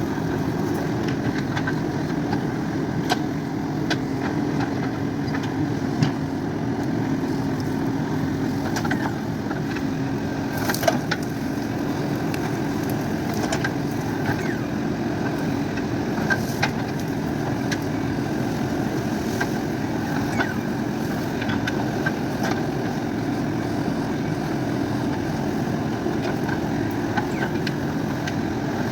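JCB 3DX backhoe loader's diesel engine running steadily, with occasional sharp knocks over it.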